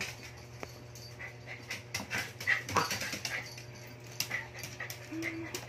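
Small dogs play-fighting: scuffling and many short ticks of paws on a wooden floor, with brief whimpers and panting.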